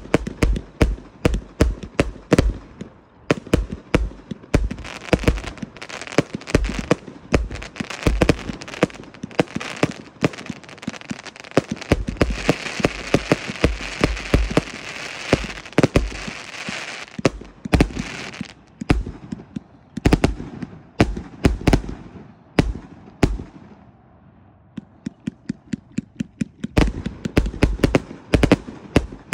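A 293-shot consumer firework cake firing in rapid succession: a continuous stream of sharp launch and burst bangs, with a steady hiss between the shots through the middle. The shots thin out later, then a fast string of shots comes near the end.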